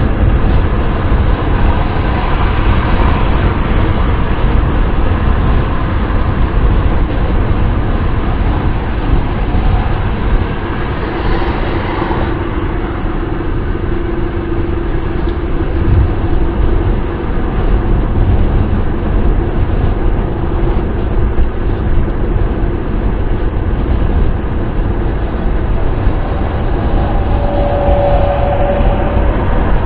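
Steady wind and road noise of a car driving at speed, a constant low rumble. A faint hum comes in and out in the middle and again near the end.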